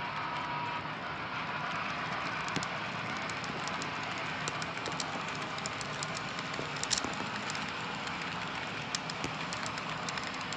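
Model railroad freight cars rolling past on the track: a steady rolling rumble of small metal wheels, with scattered light clicks.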